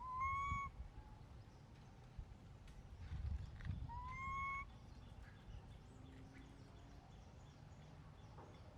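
A baby monkey gives two short, rising, whistle-like calls about four seconds apart, over a low rumbling noise.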